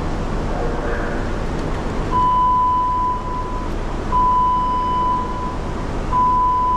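An electronic beeper sounds three long beeps at one steady pitch, each about a second and a half long and about two seconds apart, starting about two seconds in, over a steady low background noise.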